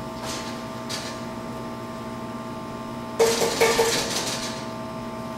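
Steady kitchen hum, then a short clatter of cookware on the stovetop about three seconds in that dies away within about a second.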